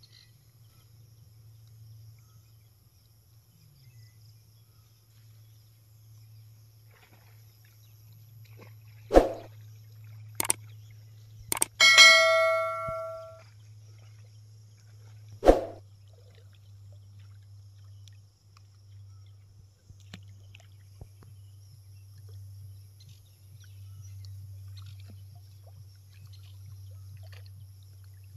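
Four sharp knocks over a few seconds and one short metallic clang that rings for about a second and a half, over a steady low hum.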